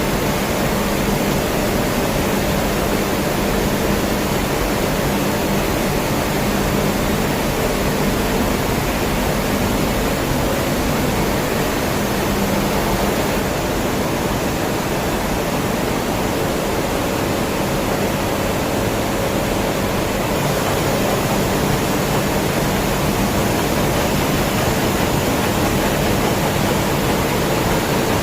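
Steady industrial noise of a non-oxidizing furnace on a steel strip line: an even, unbroken rushing noise with faint steady hums underneath.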